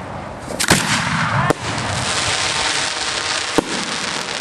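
Fireworks going off: sharp bangs of bursting shells less than a second in, again about a second and a half in and once more past three and a half seconds, over a continuous hiss.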